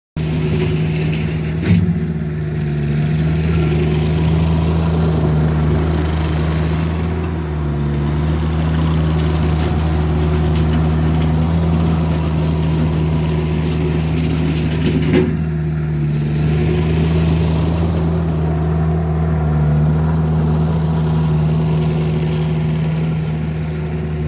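Vermeer mini skid steer's engine running steadily at a constant speed. Two short knocks break in, one about two seconds in and one about fifteen seconds in.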